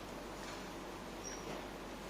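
Quiet background: a steady hiss with a faint low hum, and a couple of faint soft taps.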